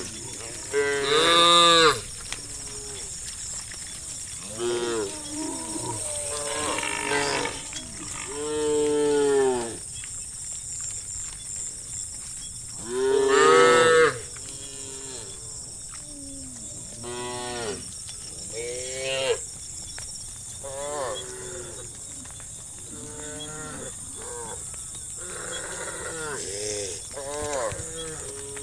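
Several cattle mooing over and over, long calls that rise and fall in pitch and sometimes overlap; the loudest come about a second in, around nine seconds and around thirteen seconds.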